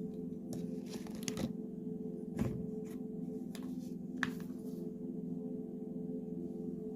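Soft background music of sustained low droning tones, with a few brief clicks and short rustles over it in the first few seconds.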